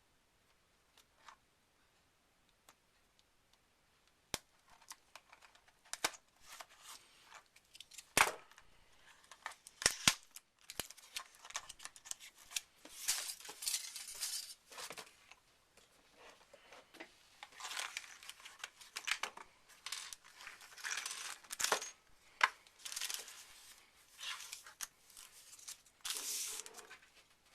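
Packaging being opened by hand: wrapping crinkling and tearing in long rustling stretches, with sharp clicks and taps between them.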